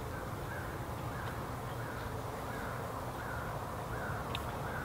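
Crow cawing in a steady series, about one call every two-thirds of a second, over a faint steady low hum.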